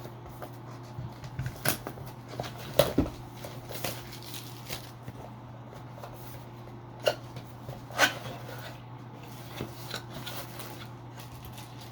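Small gear being handled and fitted by hand: scattered light clicks and taps, the sharpest about three seconds in and eight seconds in, over a steady low hum.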